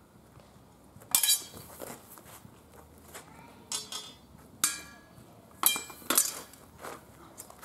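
Steel training swords and bucklers clashing in sparring: a series of sharp metallic clangs that ring briefly, a cluster about a second in, then several more, the loudest pair near the end.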